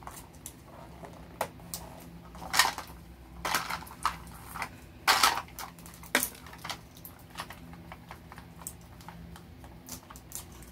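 Plastic toy capsule balls and small foil wrappers handled by hand as they are opened: irregular clicks and clacks of the plastic shell, with short crinkles of the wrappers, a few of them louder.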